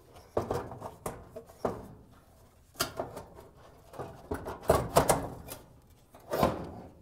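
Plastic dryer blower housing being worked loose and pulled out of the dryer cabinet: irregular knocks, scrapes and rattles, loudest about two-thirds of the way through.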